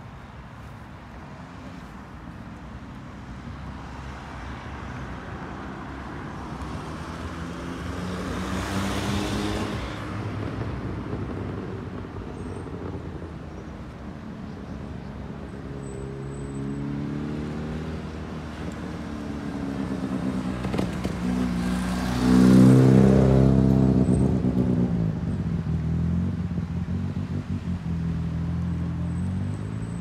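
Motor vehicle engine noise, a steady low hum that swells and fades twice, loudest about nine and twenty-two seconds in, its pitch falling after the second peak.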